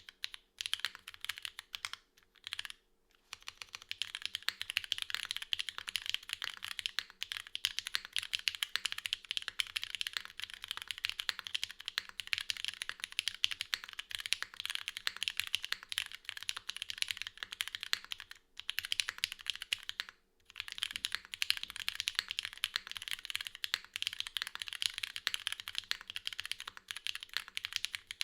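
Steady, fast typing on a Geonworks F1-8X V2 custom mechanical keyboard: lubed Cherry Hyperglide Black linear switches in a full aluminium plate with no foam, under GMK doubleshot ABS keycaps. A dense run of key clacks, broken by a few brief pauses, one near the start and two past the middle.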